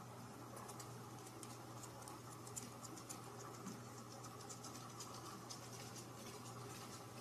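Faint scratching and light ticking: a rapid, irregular scatter of small clicks over a steady low hum.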